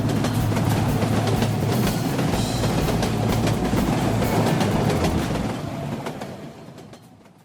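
Cartoon background music over a steady vehicle rumble, fading out over the last two seconds.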